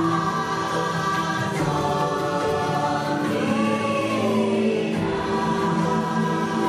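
Choir singing held chords in a dark ride's ambient soundtrack, the chords shifting every second or two.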